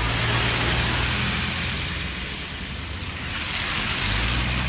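Passing road traffic: a rushing tyre noise that swells twice over a low engine hum.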